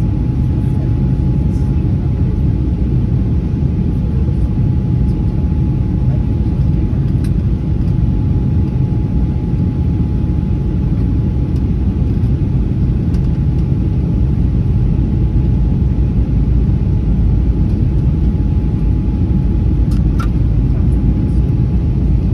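Steady in-flight cabin noise of an Airbus A320-232 with IAE V2500 engines, heard at a window seat over the wing: a deep even rumble of airflow and engine with a thin steady whine over it. A few faint ticks near the end.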